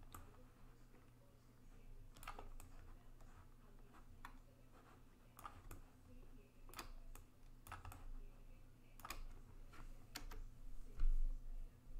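Scattered, irregular sharp clicks from a computer mouse and keyboard, with one dull low thump near the end.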